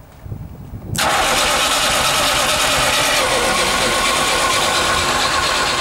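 Starter motor cranking a VAZ (Lada) car engine: a loud, steady mechanical whir that cuts in suddenly about a second in and keeps going.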